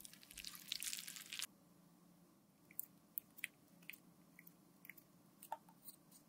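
Close, sticky squishing of a lip gloss applicator wand worked over a silicone lip model, for about the first second and a half. Then a few faint scattered clicks as a clear plastic gloss tube is handled and its cap taken off.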